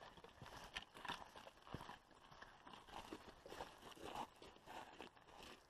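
Faint footsteps of hikers crunching along a dry, rocky dirt trail, an uneven run of steps.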